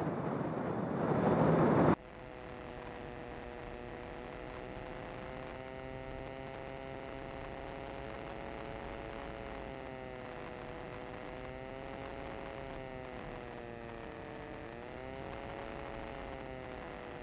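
Zenith STOL CH 701's Rotax engine and propeller on landing: for about two seconds a loud rush of wind and engine, which cuts off suddenly, then a quieter, steady engine hum that wavers slightly in pitch, dipping briefly and rising again near the end as the plane rolls onto the runway.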